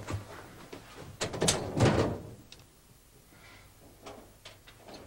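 A door being opened and closed, loudest about one and a half to two seconds in, followed by a few faint clicks.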